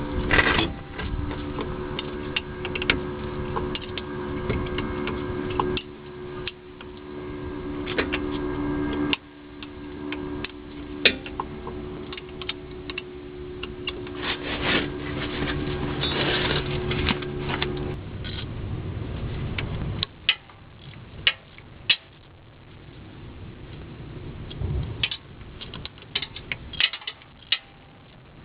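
Ratchet wrench clicking and knocking while loosening the 12 mm bolts on a CV axle flange, in irregular runs of sharp clicks. A steady hum sits under it and stops about two-thirds of the way through.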